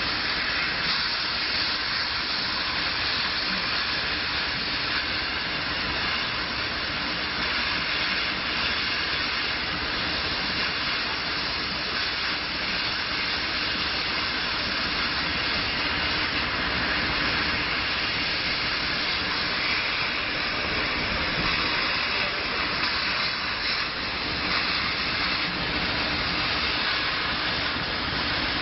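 Laser cutting machine cutting paper: a steady hiss of air at the cutting head, whose nozzle is fed by an air-assist hose, with the machine's running noise underneath.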